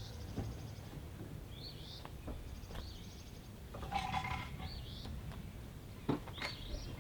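A songbird singing repeated short whistled phrases and buzzy trills every couple of seconds, with a few faint clicks.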